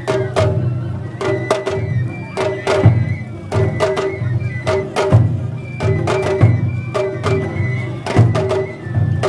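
Japanese festival float music (matsuri-bayashi): a large taiko drum beating a steady rhythm under sharp, fast stick strikes, with a ringing tone over the drums.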